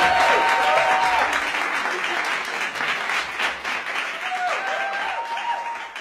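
Crowd applauding, dense clapping with a few voices calling out over it; it gradually fades out.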